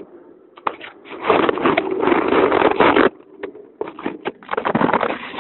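Handling noise on a phone's built-in microphone as the phone is fitted into a pneumatic-tube mail capsule: loud rubbing and scraping, with a few sharp knocks about three and a half seconds in, then more rubbing.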